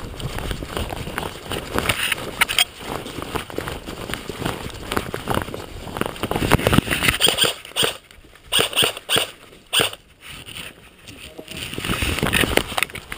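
Handling and movement noise from a body-worn camera: irregular footsteps and fabric rustling close to the microphone, quieter for a couple of seconds about two-thirds of the way through.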